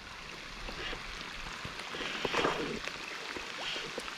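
Rain falling on lake water and rocks: a steady hiss with scattered drops pattering, and faint low voices in the middle.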